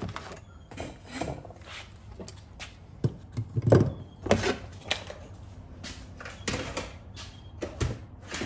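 Irregular clicks, knocks and clatter of hand tools being handled and put away, with a loud knock or two about three and a half seconds in.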